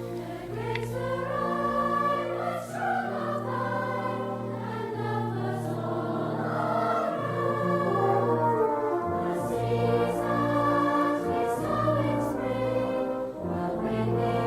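Choral music with sustained voices and orchestral accompaniment, held chords changing every second or two.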